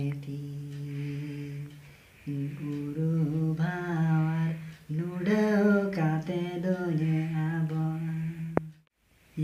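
A man singing a Santali song unaccompanied, in three long phrases of drawn-out held notes.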